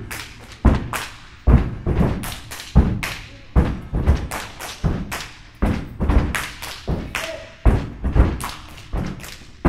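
Step team stepping: a rhythmic run of foot stomps on a portable stage riser mixed with hand claps and slaps, about two to three hits a second.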